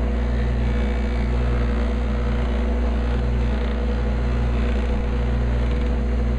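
Electric bench buffer running steadily at about 3,400 RPM, a steady hum, as a wooden frame is held with a light touch against its soft buffing wheel.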